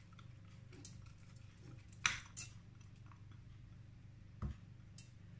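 Light clinks and scrapes of a silicone spatula against a glass bowl as wet rinsed millet is scraped into a stainless-steel saucepan. The sharpest clink comes about two seconds in, with a dull knock about four and a half seconds in.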